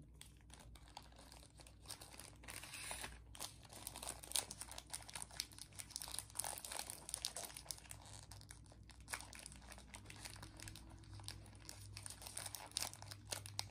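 Crinkling and crackling of a Lemona vitamin C stick pack's wrapper as hands pull at it and tear it open, in rapid irregular crackles.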